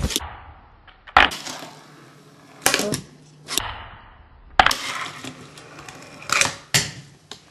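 A fingerboard clacking against a wooden box and a hard tabletop as tricks are popped and land: a string of about six sharp clicks and knocks, spaced a second or so apart.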